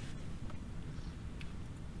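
Steady low rumble of the ambience inside a parked car's cabin, with a few faint small clicks.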